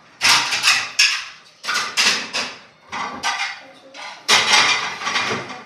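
Homemade slime being squished and worked in the hands, squelching and crackling about five times, each under a second long.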